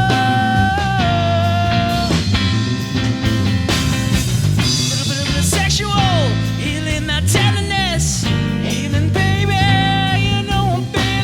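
Live band playing an instrumental passage with electric bass and drums: a lead line of long held notes that bend and slide, with falling glides about halfway through.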